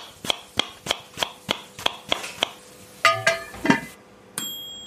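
Outro sound effect: a run of regular sharp ticks, about three a second, then two short pitched sounds, then a single bright bell-like ding that rings on.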